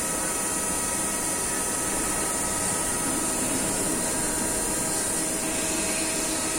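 Steady drone of factory-floor machinery in a CNC machine shop: an even running noise with several constant whining tones and a high hiss over it, unchanging throughout.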